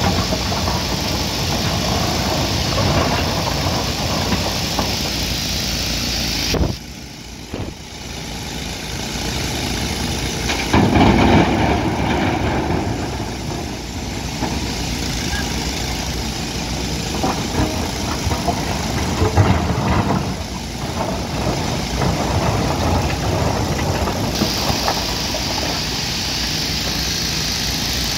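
Hyundai 215 hydraulic excavator's diesel engine running as the machine works, with louder surges now and then. The sound drops abruptly about seven seconds in and builds back up.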